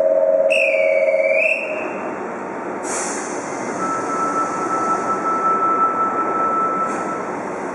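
Fukuoka City Subway 1000-series train standing at the platform during its departure routine. A steady electronic tone stops about a second and a half in, then a hiss comes about three seconds in, with a thin steady tone from about four to seven seconds in, over the hum of the station and train.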